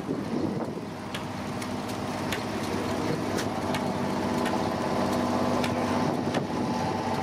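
Engine of a Scammell ex-military lorry running under load as it drags the tractor-pull weight-transfer sled, a steady, even note that grows slightly louder as the lorry comes closer.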